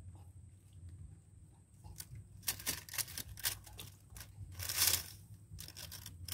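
Close handling noises as a caught giant freshwater prawn is put away in a small wooden boat: a run of quick clicks, taps and rustles starting about two and a half seconds in, with a short hissing rustle just before the five-second mark as the loudest moment.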